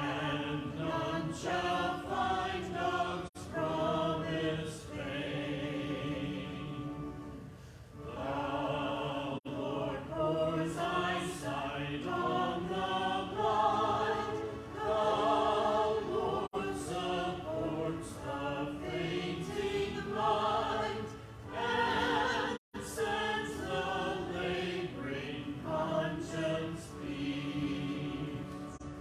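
Church choir singing a choral anthem, several voices in harmony with vibrato, the sound cutting out for an instant a few times.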